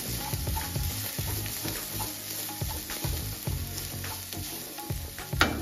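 Wooden spatula stirring and scraping a crushed coconut-and-spice mixture as it sautés in coconut oil in a hot non-stick pan, with a light sizzle, and a louder scrape near the end.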